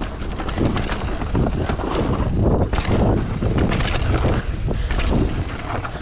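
Mountain bike ridden down a rough dirt trail: tyres rumbling and the bike rattling and knocking over bumps, with wind buffeting the microphone.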